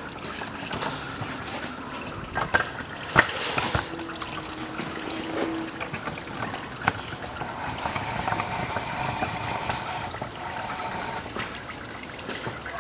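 Transmission fluid trickling in a thin stream from the Nissan Murano's CVT into a drain pan, left to drip out after draining. A sharp knock sounds about three seconds in, and a faint steady hum runs for a few seconds in the second half.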